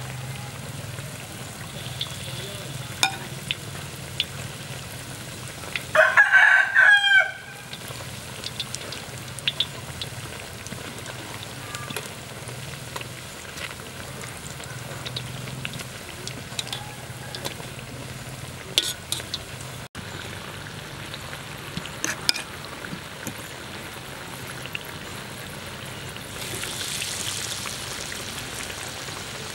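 Battered squid pieces deep-frying in a wok of oil, a steady sizzle with occasional sharp clicks of metal tongs against the pan. About six seconds in, a rooster crows loudly once, for just over a second.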